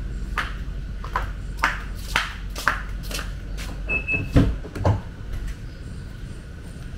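Flip-flop footsteps slapping on a concrete floor about twice a second. Then a car's short double electronic beep as the driver's door handle is grasped, followed by the door latch clunking and the door swinging open with a low thud. A steady low hum runs underneath throughout.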